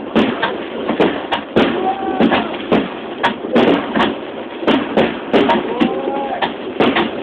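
Fireworks shells bursting in a rapid barrage, about three sharp bangs a second, over a murmur of spectators.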